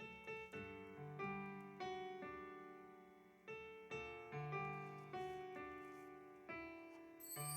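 Soft piano music: single notes and chords struck and left to fade, about one or two a second. Near the end a high sweeping, glittering sound effect comes in over it.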